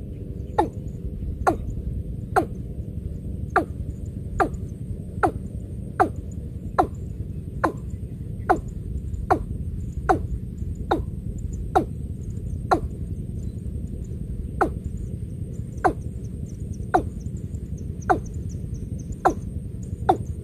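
Watercock calling a steady series of short, sharp notes, each one dropping quickly in pitch, about one a second, over a faint steady high-pitched hiss.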